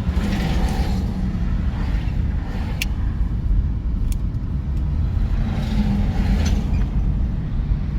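Road and engine noise inside a moving car's cabin: a steady low rumble, with a couple of sharp clicks in the middle.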